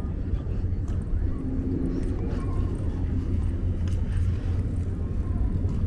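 Steady low rumble of outdoor city ambience, with a few faint footsteps on paving.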